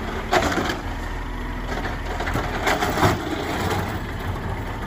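Automated side-loader garbage truck running, with the steady hum of its engine under the clatter of its lifting arm handling a wheelie bin; several sharp clunks and a crunching rattle.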